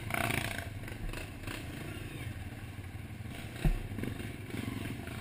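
Trail dirt bike engines running at low revs, with clatter from the bikes on rough ground. A single sharp thump about three and a half seconds in is the loudest sound.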